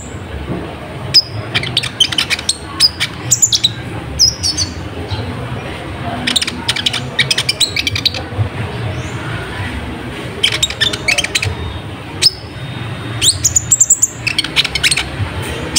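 A sunbird (kolibri ninja) singing: rapid clusters of sharp, high chirps and twittering trills, broken by short pauses, over a low steady background hum.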